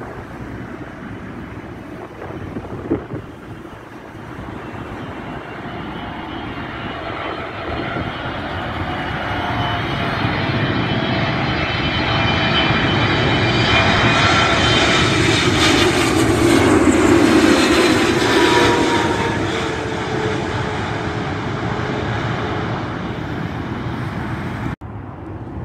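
Boeing 777-300ER's twin GE90-115B turbofans passing low overhead on final approach, growing louder to a peak and then fading. Several whining tones slide down in pitch as it passes. The sound drops abruptly near the end.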